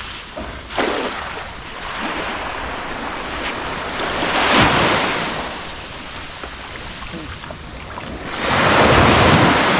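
Small waves washing on a sandy beach, with wind buffeting the microphone; the wash swells louder about four and a half seconds in and again near the end.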